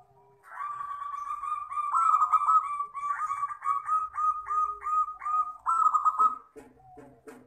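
Zebra dove (perkutut) singing: a long, rapid series of clear, ringing cooing notes, about three a second, which bird keepers call a 'crystal' voice. Near the end come a few short, lower notes.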